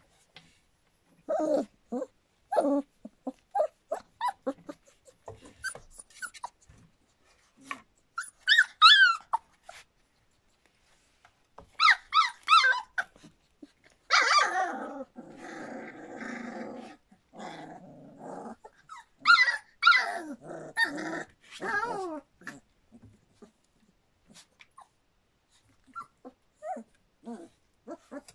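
Three-week-old standard poodle puppies whimpering and yipping in short bursts with gaps between. A longer, lower growl-like sound comes about halfway through.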